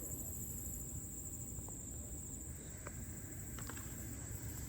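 Steady, high-pitched chorus of insects, with a few faint clicks and a low rumble underneath.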